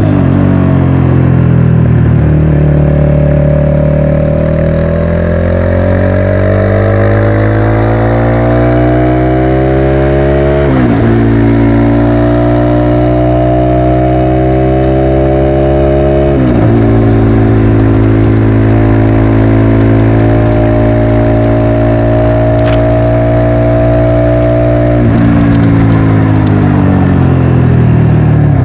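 Motorcycle engine under way, its pitch climbing steadily with the throttle and dropping sharply twice, about a third of the way in and just past halfway, as it shifts up a gear. It then holds a steady cruise and falls to a lower pitch near the end.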